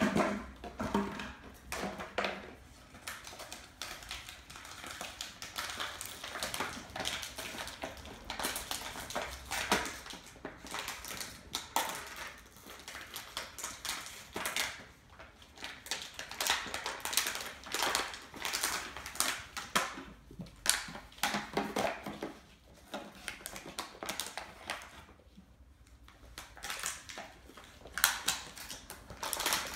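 Puppies scrambling on a hardwood floor: claws clicking and skittering irregularly, with a plastic toy rattling and scraping as it is dragged about on a rope.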